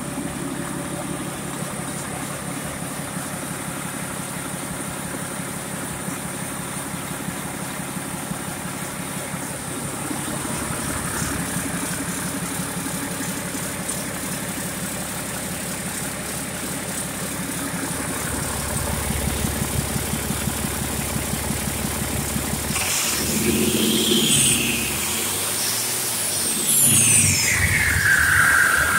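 Mack MP7 10.8-litre six-cylinder diesel engine running on a test stand, idling steadily at first. In the second half its sound grows louder and changes, and near the end a high whine falls in pitch.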